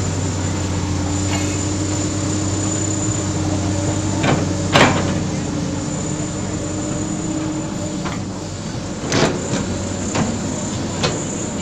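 Komatsu PC200 excavator's six-cylinder diesel engine running steadily under hydraulic load. Sharp knocks and thuds come about four to five seconds in, the loudest as the bucket's load of soil and rock drops into the dump truck's bed. Several more knocks follow near the end.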